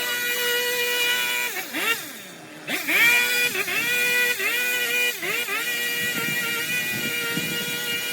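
A garden power tool's motor running at full speed with a high, steady whine; about a second and a half in it is let off and spins down, then is sped up again about a second later, let off and re-accelerated three more times in quick succession, and runs steady after that.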